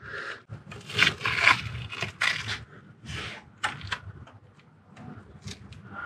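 Irregular scraping, rubbing and clicking of metal parts as the Valvetronic servomotor is worked into place on a BMW N55 engine, its worm gear not yet meshing with the eccentric shaft gear.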